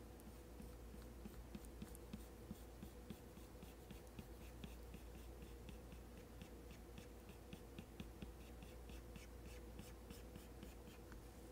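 Faint ticks and strokes of an Apple Pencil tip on an iPad's matte screen protector, several small ticks a second, over a faint steady hum.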